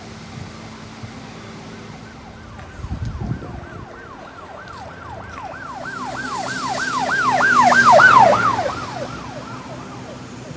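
An emergency vehicle's siren in a fast yelp, about three sweeps a second, growing louder to a peak about eight seconds in and then fading as it passes.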